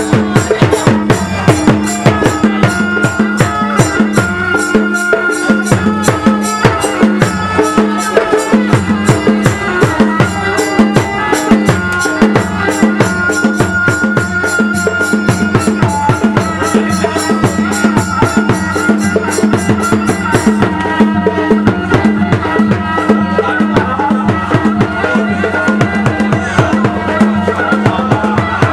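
Traditional music for a silat and Muay Thai display: rapid, even drum beats under a high held melody and a steady low tone.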